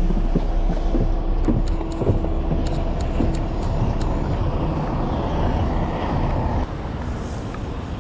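Shuttle bus engine idling with a steady low rumble, which steps down in level about six and a half seconds in.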